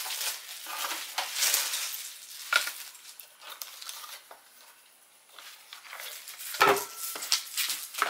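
Clear plastic packaging crinkling and rustling as hard plastic feeder parts are unwrapped and handled, with cardboard box rustles. A louder knock of a part being set down or bumped comes late on, followed by a few small clicks.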